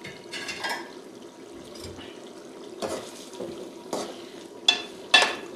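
Metal spoon stirring chicken pieces in a simmering tomato gravy in a metal cooking pot: steady wet sizzling and bubbling, with a few short scrapes and clinks of the spoon against the pot in the second half. The tomatoes have cooked down into the gravy.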